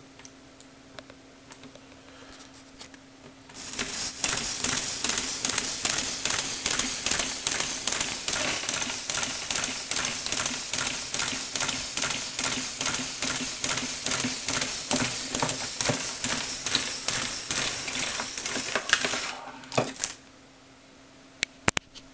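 Motor-driven Lego Technic jumping robot running: a rapid, even clatter of plastic gears and spring-loaded legs knocking on a wooden desk, about three knocks a second. It starts a few seconds in, stops near the end, and a few sharp clicks follow.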